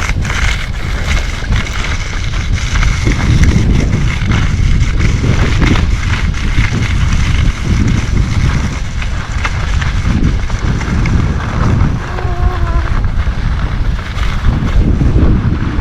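Wind buffeting the microphone of a skier moving downhill, a loud, fluttering rumble.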